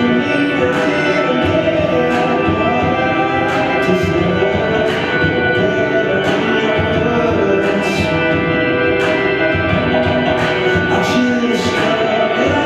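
Music with held instrumental tones and a regular, light percussive beat.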